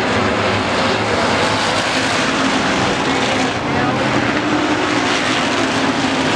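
Pack of hobby stock race cars running at speed around the oval, their engines a loud, steady drone.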